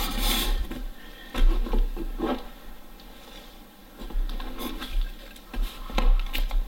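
Cardboard boxes being handled on a table: an inner box sliding and scraping up out of a snug shipping carton and being set down, in several short rustling bursts with soft bumps.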